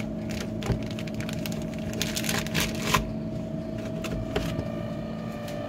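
Plastic bag of flour breading crinkling and crackling as it is handled and squeezed, in irregular sharp crackles, over a steady low hum.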